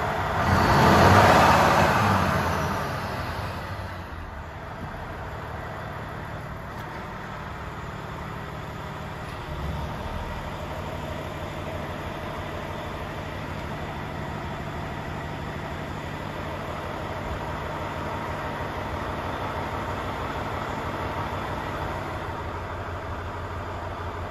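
Volvo FH 500 truck's 13-litre straight-six diesel idling steadily, a low hum heard from inside the cab. A louder swell of noise comes in the first couple of seconds, then the idle runs on evenly.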